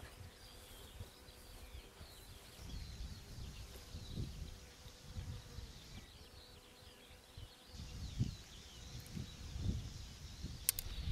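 Many small birds chirping, with low rumbles that swell and fade underneath and a sharp click near the end.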